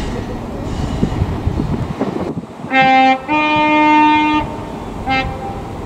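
Class 43 HST power car's two-tone air horn: a short low note, then a longer, slightly higher note lasting about a second, then a brief blip of the low note. The train's running rumble lies underneath.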